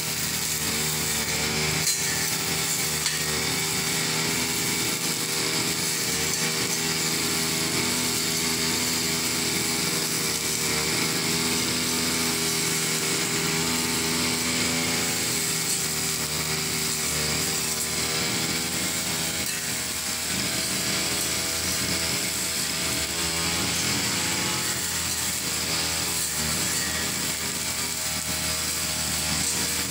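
Two-stroke backpack brush cutter running steadily at working speed, its engine note holding a fairly even pitch as it cuts grass.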